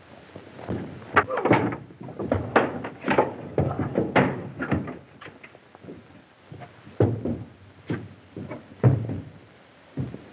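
A run of irregular knocks and thuds from a small safe's door and its contents being handled. The knocks are busiest in the first five seconds, ease off, then come again for a couple of seconds before a short lull near the end.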